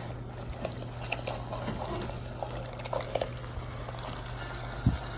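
Seasoned pork pieces stewing in a pan of browning sauce, bubbling and crackling with small wet clicks as a wooden spoon stirs and turns them, over a steady low hum. A dull knock near the end.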